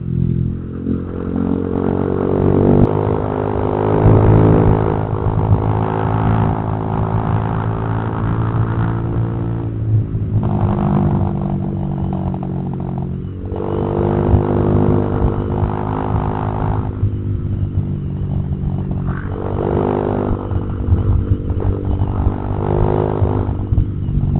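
Honda Vario 150 scooter's single-cylinder engine heard through an aftermarket imitation (KW) exhaust while riding, its pitch rising under throttle and easing off several times.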